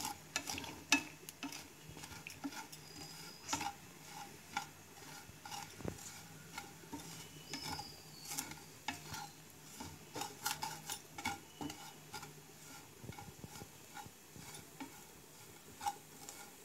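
Wooden spatula stirring and scraping a dry mixture of crushed almonds and ground spices around a nonstick frying pan while it sautés. It makes irregular soft scrapes and taps.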